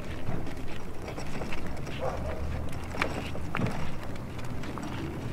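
Hard plastic wheels of a Little Tikes princess carriage ride-on toy rolling over a concrete sidewalk as it is pulled along: a steady low rumble with scattered clicks and knocks.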